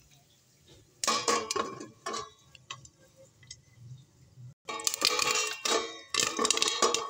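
Popcorn kernels popping in a covered metal pan and rattling against the lid. Scattered pops start about a second in and turn into a dense run of rapid pops near the end.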